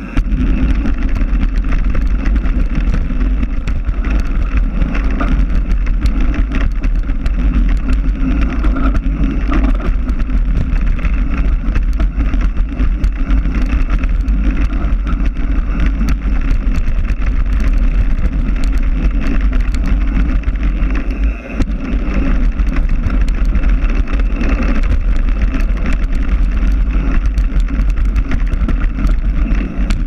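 Wind rushing and buffeting over an action camera's microphone on a mountain bike riding downhill, with the knobby tyre running over dirt and constant small rattles and clicks as the bike hits bumps. The noise dips briefly about twenty seconds in.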